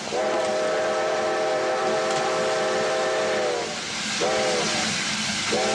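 Steam whistle of Baldwin-built steam locomotive No. 73 blowing a chord of several notes: a long blast, a short one about four seconds in, and another long one starting near the end, over a steady hiss of escaping steam.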